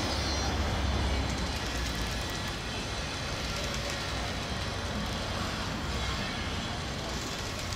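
Low engine rumble fading away over the first few seconds, over steady outdoor background noise.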